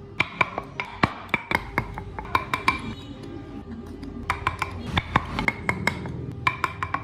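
Background instrumental music with quick plucked and struck notes, several a second.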